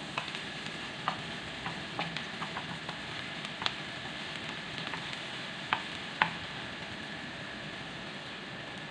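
Chopped onion and garlic sizzling in olive oil in a nonstick wok, stirred with a wooden spatula that scrapes and taps against the pan in scattered sharp knocks, the two loudest a little after halfway.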